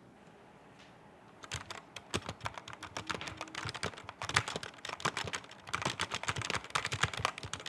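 Typing on a mechanical keyboard with Otemu red (linear) switches: a quick, irregular run of key clacks that starts about a second and a half in.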